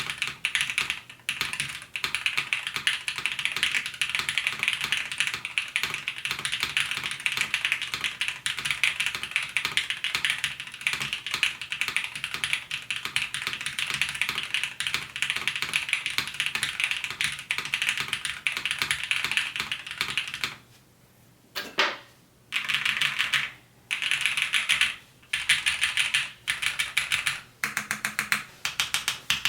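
Fast typing on a custom mechanical keyboard with Cherry-topped Everglide Peacock Blue linear switches in an O-ring-mounted 5052 aluminium plate. The keystrokes come quickly and densely, with a few short pauses about two-thirds of the way through.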